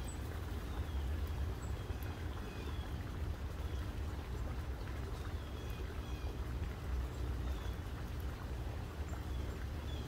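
Backyard ambience: a steady low rumble with a faint hum, and short, faint bird chirps scattered through it every second or two.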